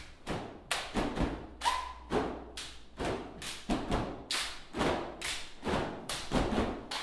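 Dancers' feet stamping in unison on a wooden studio floor, a rhythmic train of thumps at about two to three a second, ringing in a bare, echoing room. A short shout comes about a second and a half in.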